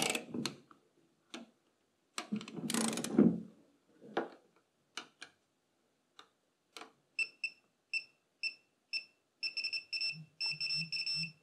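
Clicks and knocks of a wrench being worked, then a digital torque wrench beeping about twice a second from about seven seconds in, turning to rapid beeping near the end: the signal that the set torque of 39 newton meters on the fuel tank strainer is reached.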